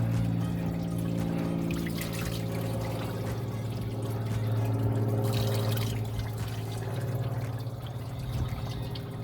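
Engine coolant pouring and trickling steadily out of a Honda CR-V's cooling system into a catch container as the system is drained for a thermostat replacement.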